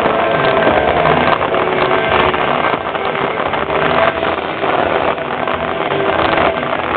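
Fireworks display going off: a dense, continuous crackle and fizz of many fireworks at once, thick with rapid sharp pops.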